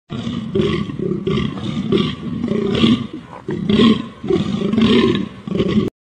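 Bull elk calling with its mouth open: a loud, coarse call broken into a rapid series of pulses, about two a second.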